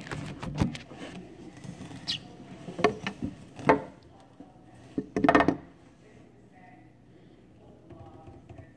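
A plastic cricket carrier tube handled in a reptile tank: a series of knocks and scratchy rubs in the first half, with a longer, louder scrape about five seconds in, then quiet.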